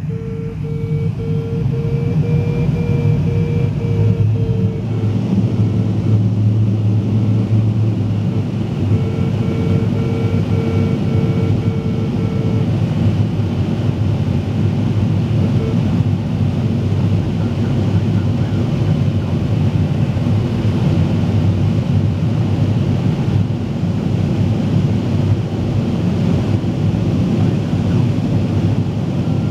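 Steady rush of airflow around a glider's cockpit canopy in flight. An electronic variometer beeps in a quick series of short pips for the first few seconds, and again from about nine to twelve seconds in. The beeping signals that the glider is climbing.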